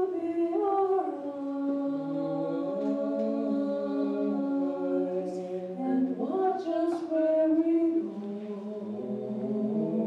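A man and two women singing together in harmony, apparently unaccompanied, holding long sustained notes that shift together, with a brief break a little past the middle.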